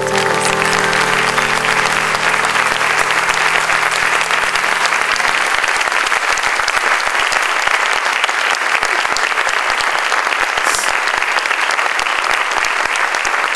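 Audience applauding steadily, while the last piano notes ring on and die away over the first five seconds or so.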